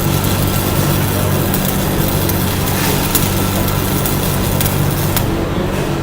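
Stick-welding arc from a 6013 electrode at 135 amps, a dense steady crackle over a low steady hum. The crackle cuts out about five seconds in, leaving the hum.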